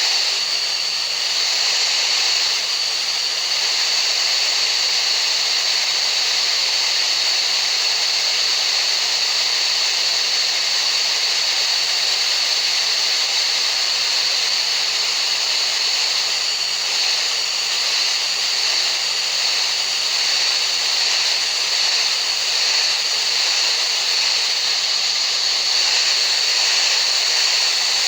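Steady, unchanging hissing noise, weighted toward the high end, with a constant high-pitched tone running through it: a tinnitus-masking sound track.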